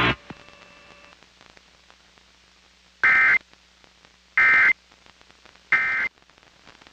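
Emergency Alert System end-of-message data tones: three identical short bursts of the SAME digital code, a harsh two-tone screech about a second and a half apart, signalling the end of the alert. A faint low hum runs between the bursts.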